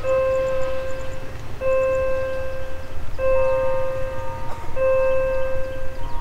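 A bell-like warning tone sounds four times, about every second and a half, each ring held for over a second. A low steady rumble runs underneath.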